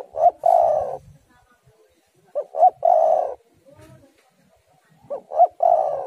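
Spotted dove (tekukur) cooing: three phrases about two and a half seconds apart, each two short notes followed by a longer coo.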